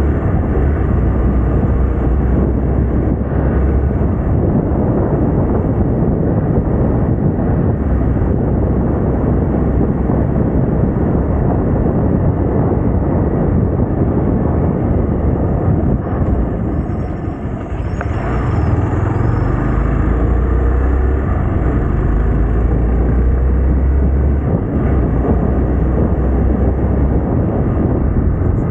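Hero Xpulse 200T motorcycle riding along: its single-cylinder engine running under a steady, loud rush of wind on the camera microphone. The sound eases briefly a little over halfway through, then picks up again.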